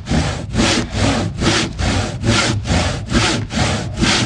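Hand saw cutting through a wooden block in steady back-and-forth strokes, about two rasping strokes a second.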